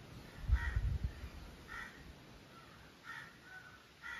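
A crow cawing four times, about a second apart, with a cluster of low knocks near the start.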